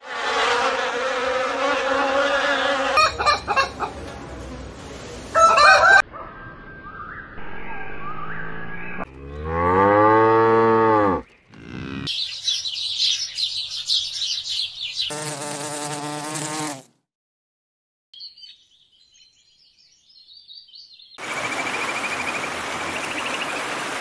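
A quick succession of animal sounds that cut into one another every few seconds: honeybees buzzing at a hive, then assorted animal calls including a long low moo from a cow about ten seconds in, then house sparrows chirping.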